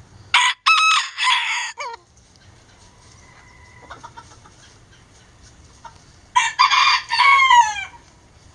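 A Self Blue (lavender) Old English Game bantam rooster crowing twice at close range. Each crow is a few broken notes ending in a falling, drawn-out note.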